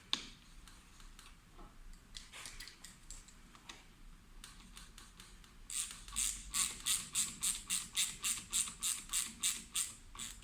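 13 mm socket ratchet wrench tightening the fork's bottom air-spring cap back down. There are a few faint clicks at first, then from about halfway a steady run of sharp ratchet-pawl clicks, about four a second.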